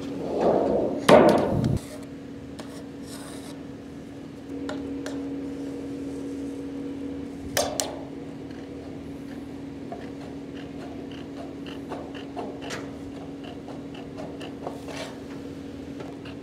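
A long sheet-metal valley pan panel flexing and rattling as it is handled, with one sharp bang about a second in. Then metal snips make a run of short clicks and scrapes as they cut the panel's end to the eave angle, over a steady low machine hum.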